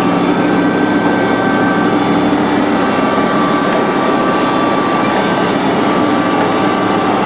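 1974 DoAll C5A automatic horizontal band saw running, a loud, steady machine noise with a few held whining tones over it.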